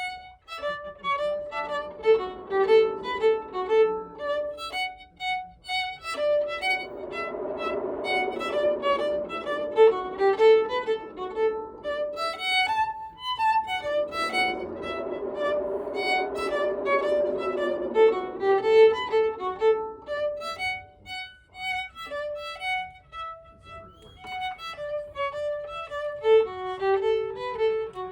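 Solo violin playing live: quick, short repeated notes alternating with fuller, denser passages, with brief breaks between phrases.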